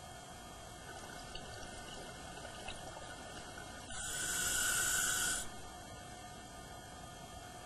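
Scuba diver's regulator: one exhalation about four seconds in, a loud rush of bubbles lasting about a second and a half, between quieter stretches with a faint steady hum.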